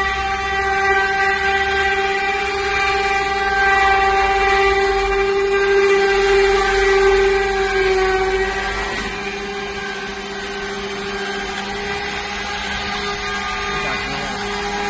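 Mini automatic edge banding machine running as a wood panel feeds through it: a steady motor whine over a low hum, easing slightly about two-thirds of the way through.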